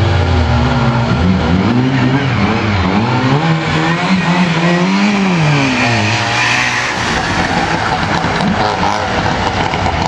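Škoda saloon's engine revving up and down repeatedly as the car is thrown through a tight turn. After about six seconds this gives way to a rougher, noisier engine and tyre sound as a Trabant drives past.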